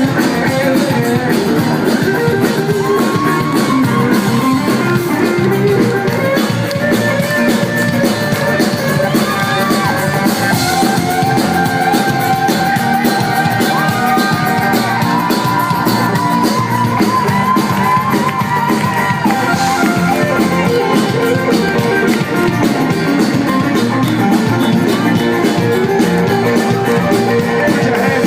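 Live band music with guitar and drums.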